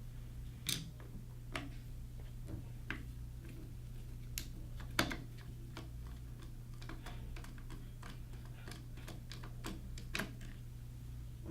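Flathead screwdriver working the screws loose on a joystick contact block: small, sharp, scattered clicks and ticks, sparse at first and coming more often in the second half, over a faint steady low hum.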